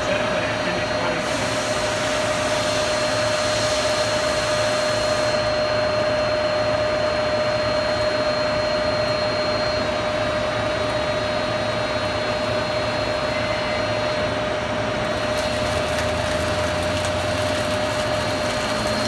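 Gleason hypoid gear generator running under power with no gear being cut: a steady mechanical drone from its motors and drive with a constant mid-pitched whine. A hiss joins about a second in and stops about five seconds in.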